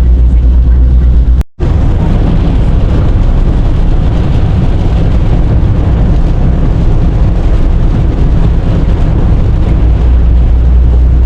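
Loud, steady low rumble of a car on the road, heard with the recording device riding along, with a sudden brief dropout about one and a half seconds in.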